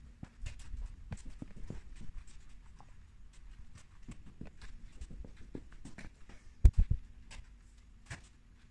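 Person moving about on a concrete floor: scattered light footsteps and taps, with three heavy low thumps close together about two-thirds of the way in.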